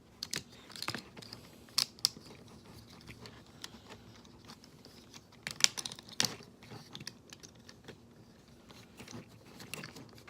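Plastic clicks and taps from a Transformers Combiner Wars Sky Lynx figure being handled, its parts moved and snapped into place; scattered sharp clicks, the loudest about two seconds in and again around six seconds.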